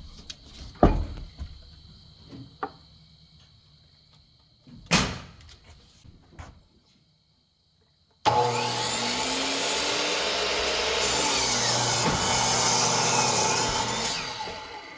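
A few scattered knocks of lumber being handled, with crickets chirping faintly; then about eight seconds in, a power saw starts cutting a board for rafter blocking, a loud steady whir that fades near the end.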